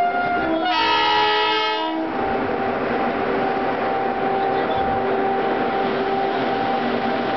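A train horn sounds a chord of several notes for about a second, starting just under a second in; then the WCAM3 electric locomotive's DC traction-motor blowers run with a steady hum.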